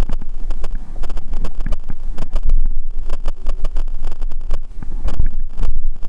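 Mountain bike rolling fast over wooden ramps: the tyres rumble on the boards while the bike and handlebar camera rattle with dense, irregular knocks, and wind buffets the microphone.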